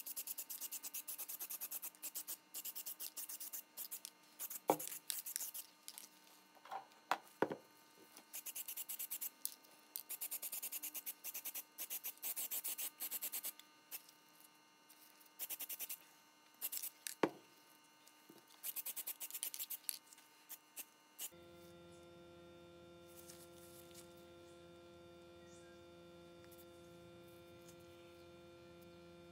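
An aerosol can of etch primer spraying in repeated hissing bursts, some several seconds long, with a few sharp clicks among them. About two-thirds of the way through the spraying stops and a steady electrical hum takes over.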